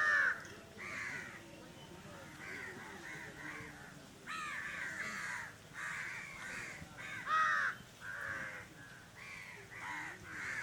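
Crows cawing over and over, several birds with overlapping harsh calls; the loudest caws come right at the start and about seven and a half seconds in.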